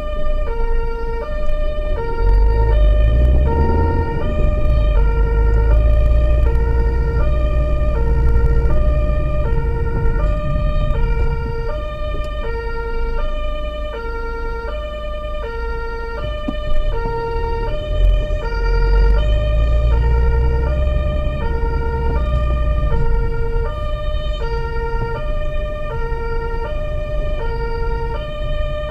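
German two-tone emergency siren (Martinshorn) sounding from inside the vehicle, steadily alternating between a lower and a higher tone, over the rumble of the engine and tyres. The rumble swells twice as the vehicle accelerates.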